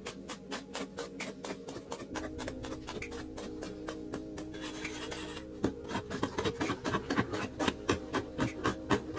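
Hand tools scraping and chopping into a packed-earth block, over background music with a steady beat. Past the middle the strikes grow louder, about two to three a second.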